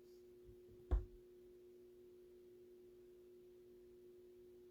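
Quiet steady low hum of two held tones, with a single sharp knock about a second in.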